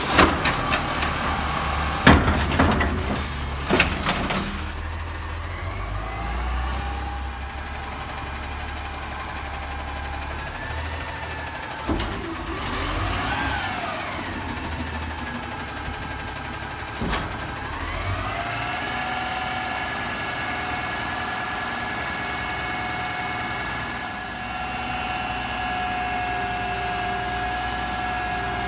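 Amrep HX-450 automated side loader on a Peterbilt 320 garbage truck: in the first few seconds the arm shakes out a plastic cart, which rattles and bangs against the hopper. Then the engine-driven hydraulic whine rises, glides up and down, and settles into a steady high whine, with a clunk or two from the arm and cart.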